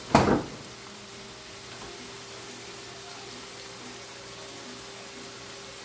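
A sharp knock right at the start, then vegetables (carrots, celery and onions) sizzling steadily in oil in a pan.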